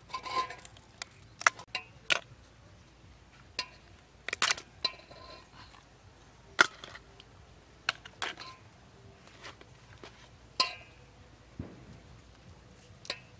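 Raw blue swimmer crab shells cracking and snapping as they are pulled apart by hand, with pieces knocking against a steel bowl. The sounds are sharp, irregular clicks, a second or two apart.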